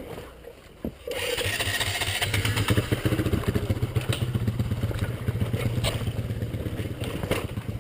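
A dirt bike engine starts about a second in and then runs at a steady idle.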